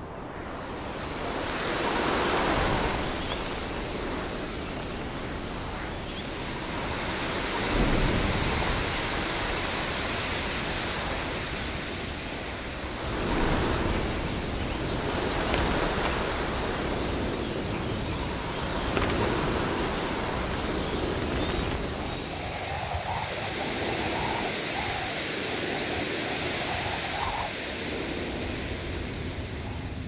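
Rushing, wind-like whooshing that swells and fades in waves every five or six seconds, with a fine high hiss over it that drops away about three-quarters of the way through.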